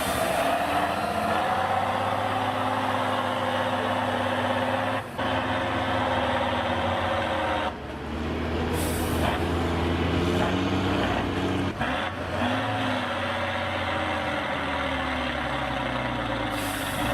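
A Tatra 813's air-cooled V12 diesel engine labours under load as the 8x8 truck drives through sand, its note rising and falling as it revs. The sound drops out briefly about five seconds in and again near eight and twelve seconds.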